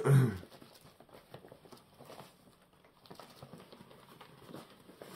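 Faint rustling and light tapping: packaging and small items being handled.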